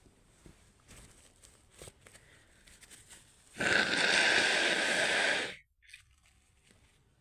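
A person's breath rushing hard through the nose for about two seconds, starting and stopping sharply, after a sneeze; faint small rustles come before it.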